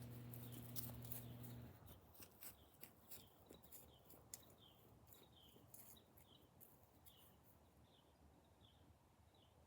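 Near silence with faint short chirps repeating about twice a second, and a low steady hum that cuts off a little under two seconds in.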